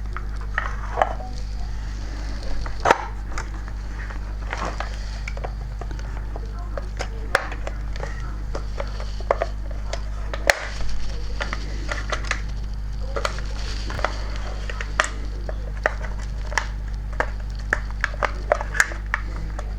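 Irregular small clicks and taps of a plastic 00-gauge model locomotive body being handled and pushed back onto its chassis, over a steady low hum.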